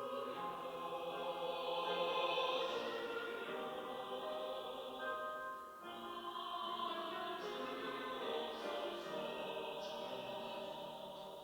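Church choir singing a sacred anthem in sustained chords. There is a brief break between phrases about six seconds in, and the sound tapers off near the end.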